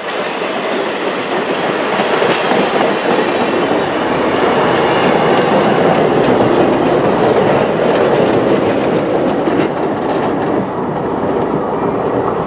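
Railroad cars of a passing train, a boxcar followed by a baggage car and passenger coaches, rolling by close at hand: steady steel-wheel-on-rail noise with wheels clicking over the rail joints.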